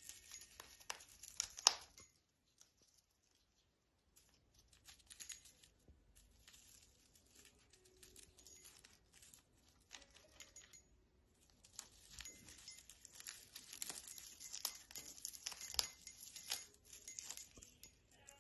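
Female eclectus parrot tearing and crunching a dry, crinkled shredding toy with its beak: irregular bursts of crackling and tearing. It stops for about two seconds near the start and briefly about halfway, and is busiest in the last third.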